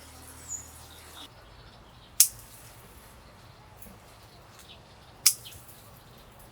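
Pruning shears snipping through hydrangea stems: two sharp cuts about three seconds apart, with a few faint ticks between them.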